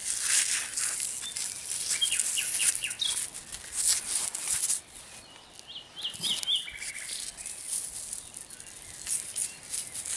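Gloved hands rummaging in loose soil and dry grass, a rustling, crackling scrape that comes and goes, quieter from about halfway. A bird chirps short high notes twice, about two seconds in and again near six seconds.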